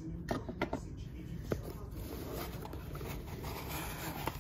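Cardboard mailer box being handled, with a few light taps and scrapes against it.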